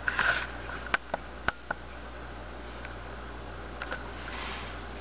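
Several sharp clicks in the first two seconds and a short rustle near the end, over a steady hiss and low hum. No calls.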